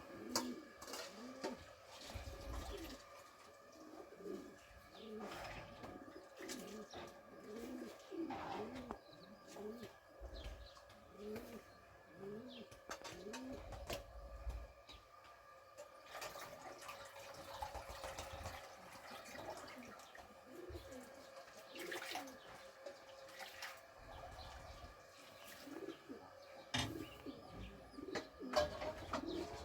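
Pigeons cooing over and over, low repeated coos in runs with short pauses, with a few faint sharp knocks.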